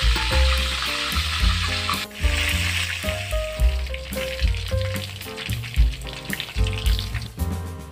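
Chicken pieces deep-frying in hot oil in a wok, a dense sizzle, with a metal spatula stirring them; the sizzle drops briefly about two seconds in and comes back. Background music plays underneath.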